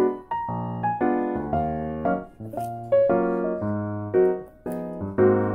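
Background music: a light keyboard tune over a bass line, its notes changing in a steady rhythm.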